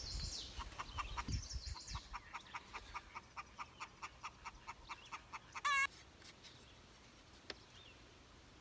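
Birds calling: a fast run of short chips, about four a second, fading away over the first five seconds, then one short wavering call near six seconds.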